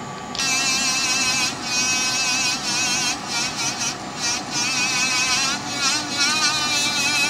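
High-speed rotary handpiece spinning a polishing wheel against a platinum pendant mount. Its high whine starts about half a second in, wavers in pitch and dips briefly several times.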